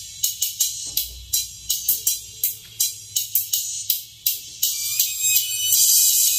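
Drum-backed music played through a pair of Pioneer P8801 tweeters, heard thin and treble-only: mostly crisp hi-hat and cymbal ticks, about three or four a second, with almost no midrange. A longer cymbal wash comes near the end.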